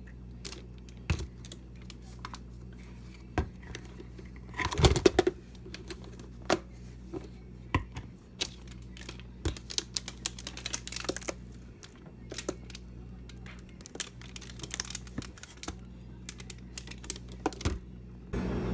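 Scattered light clicks and taps at irregular intervals, with a denser cluster about five seconds in, over a steady low hum.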